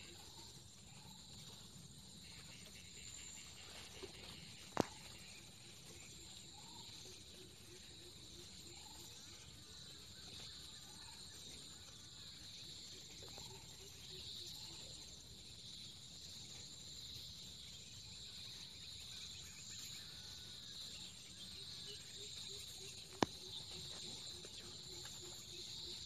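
Faint, steady chorus of crickets or similar insects, with soft repeated chirps scattered through it. Two sharp clicks stand out, about five seconds in and again near the end.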